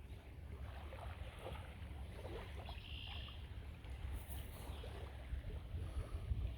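Steady low wind rumble on the microphone, with faint scattered ticks and a brief high note about three seconds in.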